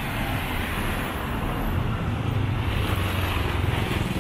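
Steady low rumble of street traffic, growing a little louder near the end.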